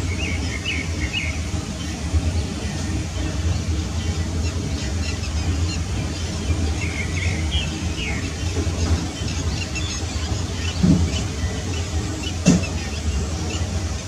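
Whistling ducks giving short, high whistled calls in scattered bunches, over a steady low rumble, with two short thumps near the end.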